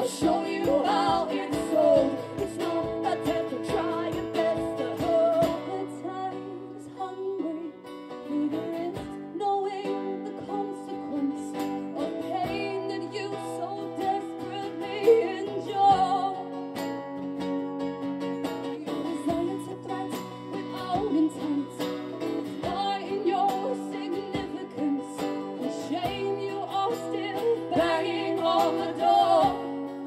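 Live folk-pop band music: strummed acoustic guitar keeping a steady beat, with singing over it.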